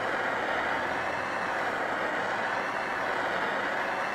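Bernzomatic propane torch on a 1-pound bottle burning with a steady, even rushing noise as its flame scorches a pine board dark.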